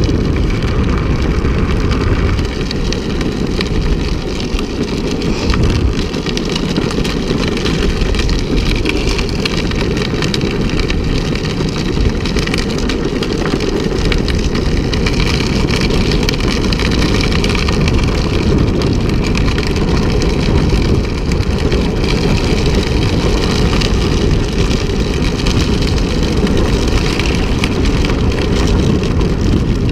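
Steady rush of wind on the microphone over the rumble of a drift trike's wheels rolling fast on asphalt, running without a break.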